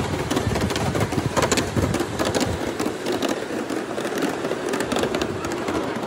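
Wheels of a ride-on miniature railway train rolling over the track, heard from aboard: a steady, dense clatter of many small clicks and knocks.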